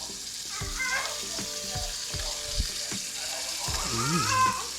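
Oil sizzling steadily in a frying pan as food fries.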